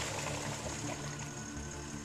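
Argo amphibious 8x8's engine running steadily as its tracks churn through muddy creek water, with splashing and sloshing under the engine drone.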